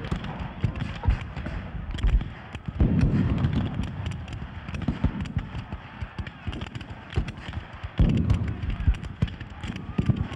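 Black-powder muskets firing in a reenacted battle: scattered shots crackling throughout, with men shouting and heavier blasts about three seconds in and again about eight seconds in.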